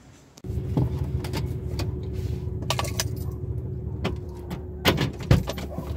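Car driving, heard from inside the cabin: a steady low road and engine rumble with a faint steady hum, starting about half a second in. A few sharp rattling clicks come through, a pair around three seconds in and the loudest about five seconds in.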